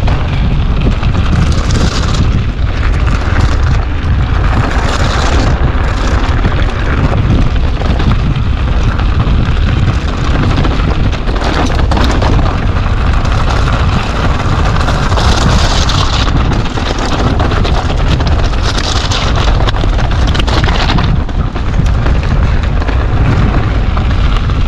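Strong wind buffeting the microphone: a loud, constant low rumble with rushes of hiss that rise and fall every few seconds.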